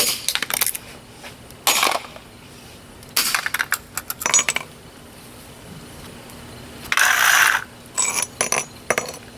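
A plastic wall-adapter transformer case being smashed open: clusters of sharp knocks and clatters, with a short rasp about seven seconds in.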